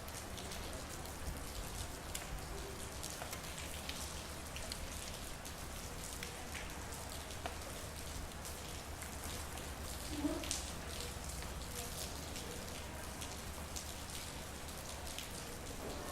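Steady rain, with many separate drops ticking sharply on nearby surfaces over a steady low hum.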